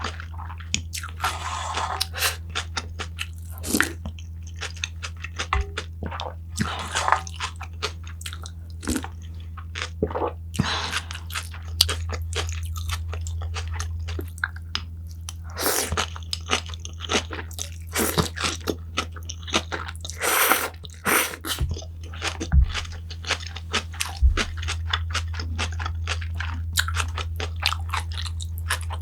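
A person eating close to the microphone: irregular crunching bites and chewing, with short crisp bursts throughout, over a steady low hum.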